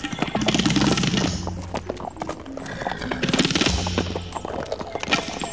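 Hoofbeats of several horses riding together, dense and rapid, over background music with held low notes.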